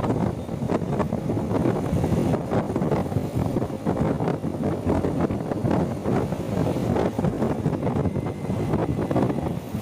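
Wind buffeting the microphone over the noise of the road and traffic while riding, a continuous rush that drowns out the rider's voice.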